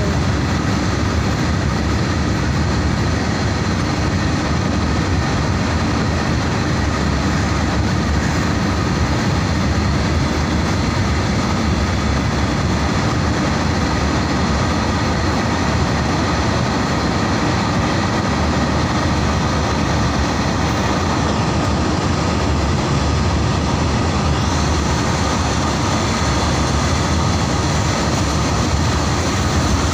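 A long Indian Railways freight train of open-top wagons rolling past at close range: a loud, steady rumble of wheels on rail.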